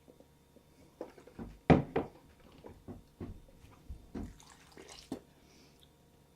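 Water sloshing and splashing amid a string of irregular knocks of handling, the loudest a little under two seconds in.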